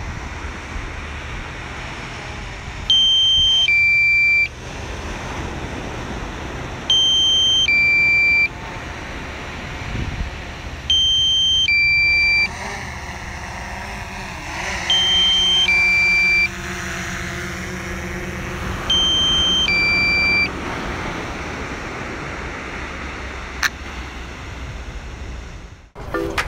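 Electronic warning beeps: a high tone stepping down to a lower one, repeated five times about four seconds apart, over a steady rush of wind noise.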